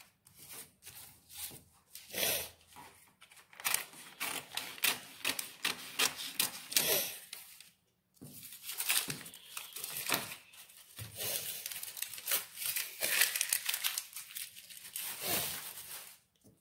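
Scissors snipping through brown pattern paper, with the paper rustling and crinkling in irregular bursts as the cut pieces are handled and laid flat; a brief pause about halfway through.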